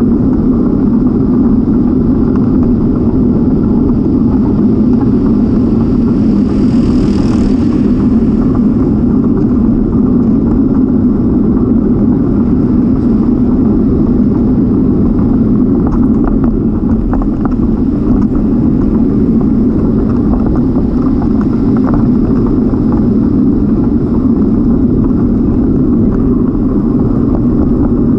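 Steady wind rumble on the microphone of a camera moving along on a bicycle, mixed with the tyres rolling over asphalt. A brief hiss swells and fades about seven seconds in.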